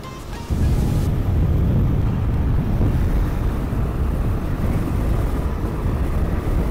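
Motorcycle riding at speed: a low rumble of wind on the microphone and road noise, coming in suddenly about half a second in and then holding steady.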